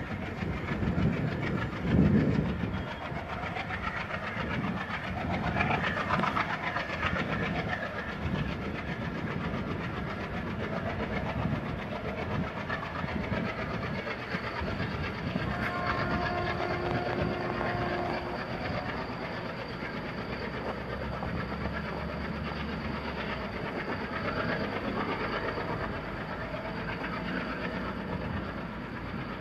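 Diesel-hauled passenger train moving away, its wheels clattering over the rails under a steady rumble that slowly fades. About halfway through, the WDM 3A locomotive's horn sounds once for about three seconds.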